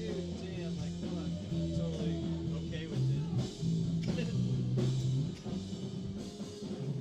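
Rock band playing live, with drum kit and guitar.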